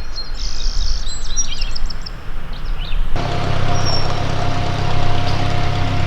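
Small birds chirping and singing over a low rumble; about three seconds in the sound cuts abruptly to a louder steady rushing noise with a low hum and a faint held tone.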